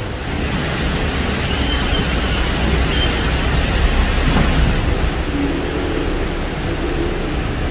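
Steady hiss of heavy rain and running water, swelling a little for a few seconds in the middle, over a low rumble.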